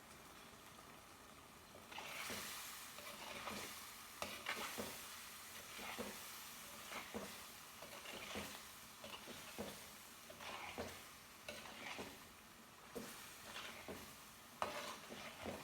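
A spoon or ladle stirring food in a hot pan, scraping and knocking against it while the food sizzles. The stirring starts about two seconds in and goes on in uneven strokes, roughly one a second.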